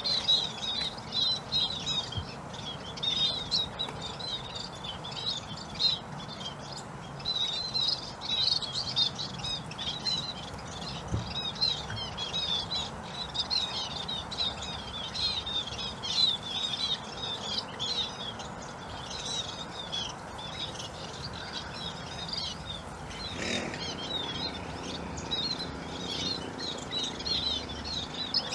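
Flock of munias chirping continuously while feeding: many short, high-pitched calls overlapping without a break.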